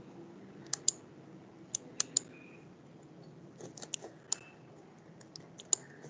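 Faint, sharp clicks of a computer's mouse and keys, about a dozen in irregular small groups, over quiet room noise, as a PDF view is zoomed in.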